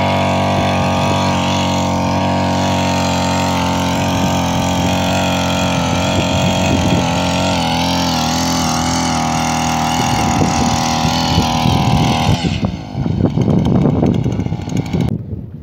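Engine-powered handheld earth auger running steadily at high speed as it bores a post hole in dry soil. About twelve seconds in the steady engine note stops, and a few seconds of uneven knocking follow before it dies down near the end.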